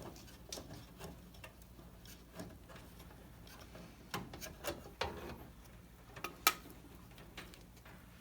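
Faint, irregular clicks and ticks of a small socket wrench and metal machine screws being worked out of a dryer's control panel, with one sharper click about six and a half seconds in.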